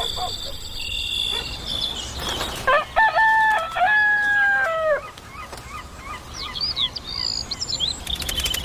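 A rooster crowing once, a long call about three seconds in, followed by small birds chirping.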